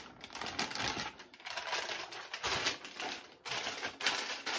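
Packaging being handled: a crinkly anti-static bag rustling, with foam and a cardboard box clicking and scraping in a quick, irregular run of small clicks and rustles.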